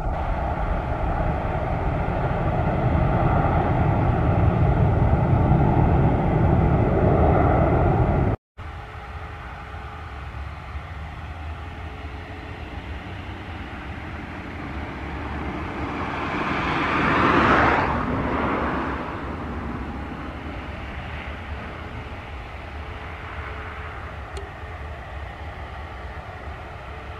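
Jet airliner engines at an airport: a loud steady rumble that cuts off abruptly about eight seconds in. A quieter steady jet hum follows, from an easyJet Airbus back-tracking along the runway, and it swells briefly and fades around seventeen seconds.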